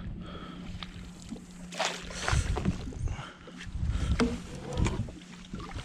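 Water lapping and knocking against a small fishing boat's hull, with irregular bumps and rustles of handling in the boat over a steady low hum.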